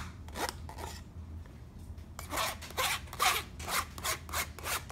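Metal spoon scraping pancake batter through a stainless wire-mesh sieve: quick repeated strokes, a few at first and then several a second from about two seconds in.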